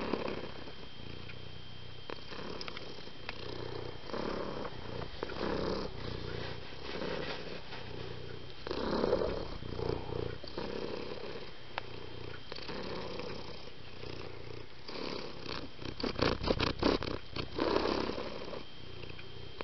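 A cat purring in slow, even in-and-out cycles, with a louder run of quick clicks about three-quarters of the way through.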